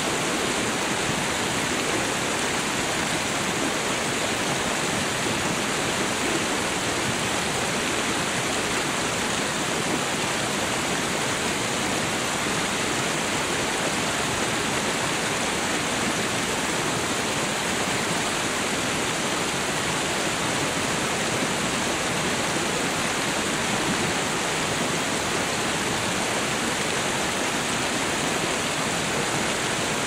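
River waterfall crashing on the rocks below: a steady, unbroken rush of falling water.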